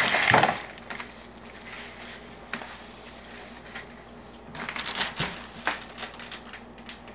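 Plastic crinkling and rustling as packaging is handled: one loud crinkle at the start, then a run of short crackling rustles from about four and a half seconds in as a zip-top bag of flour-coated chicken thighs is picked up and handled.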